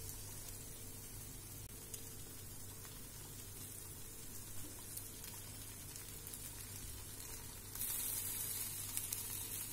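Sabudana batter sizzling gently in a ghee-greased non-stick appe pan over a low gas flame, with fine crackling. A louder, hissier sizzle comes in about eight seconds in.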